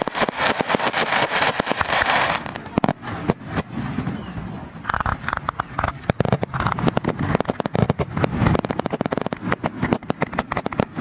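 Fireworks going off: a thick crackling wash for the first two seconds, then many sharp pops and bangs in quick, uneven succession.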